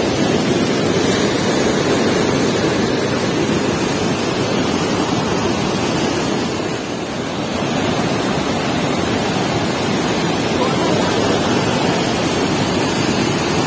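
Muddy river water pouring through the open sluice gates of a barrage and churning in the basin below: a loud, steady rush of water.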